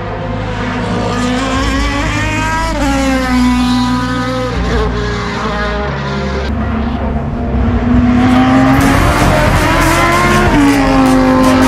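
Race car engine at full throttle on a hillclimb, its pitch climbing and then dropping back at each upshift, several times. It grows louder near the end as the car comes close and passes.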